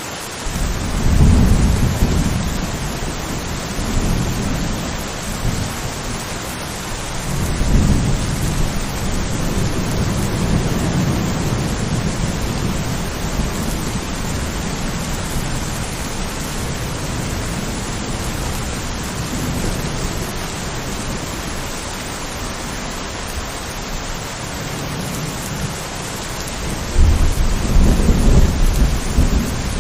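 Steady rain hissing, with rolls of thunder rumbling through it: one begins within the first second, another swells about seven seconds in, and the loudest comes near the end.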